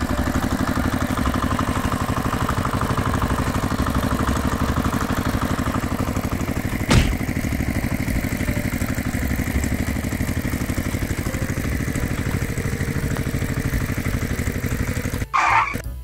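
Engine sound effect: an engine running steadily with a fast, even pulse. There is one sharp click about halfway through, and the engine cuts off suddenly near the end with a short higher-pitched blip.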